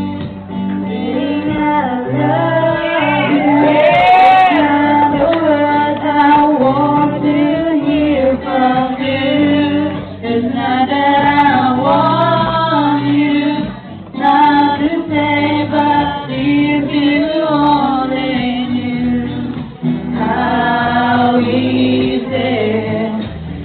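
A small group singing together, women's voices to the fore, with acoustic guitar accompaniment, performed live on stage.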